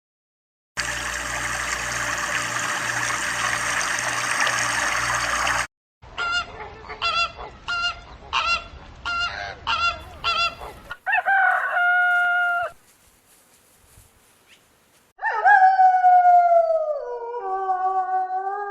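Geese honking in several separate clips: first a dense, noisy flock clamour for about five seconds, then a run of short honks about two a second. After a longer held call and a brief pause, a long honk falls in pitch near the end.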